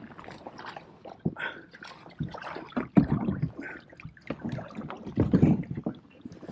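Irregular knocks and bumps of a plastic fishing kayak and its gear, with water splashing and lapping at the hull, as it is worked in against submerged logs and branches. The sharpest knock comes about three seconds in.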